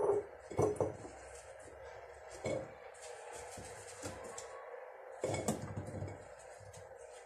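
Small pickling cucumbers (gherkins) dropped and packed by hand into an empty glass jar. There are a few knocks of cucumbers against the glass: at the start, just before a second in, at about two and a half seconds and around five seconds. Between them gloved hands rustle faintly.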